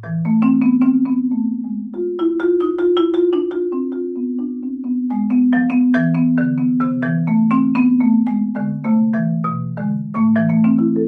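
Marimba played with two mallets: a quick run of struck notes in its lower range, the long wooden bars ringing on and overlapping one another. There is a short break about two seconds in, and the last notes are left ringing.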